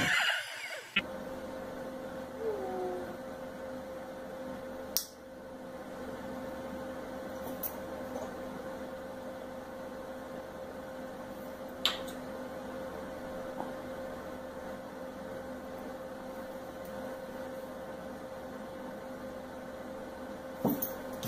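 Steady electrical hum with a constant tone, with a few faint clicks. A short burst of noise opens it and cuts off about a second in.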